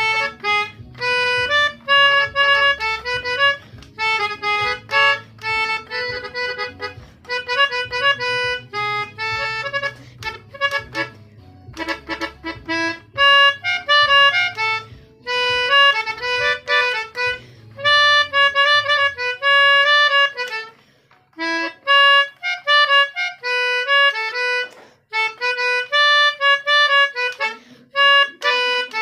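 Pianika (melodica) playing a fast tune of short, clipped notes in the style of an Indonesian telolet bus-horn melody. A low bass line runs underneath and drops out about two-thirds of the way through.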